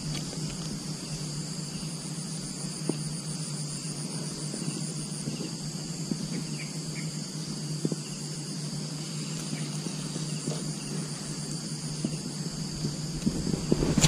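A steady chorus of insects calling: several high buzzing tones, one of them a pulsing trill that stops about five seconds in. A low steady hum runs underneath, and rustling grows louder near the end.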